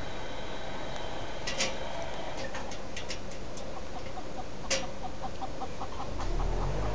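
Backyard chickens clucking: a few sharp chirps, then a quick, evenly spaced run of short clucks in the second half. Wind rumbles on the microphone near the end.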